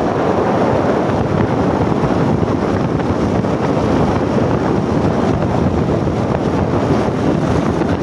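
Steady rushing noise of wind buffeting the microphone, with no distinct events.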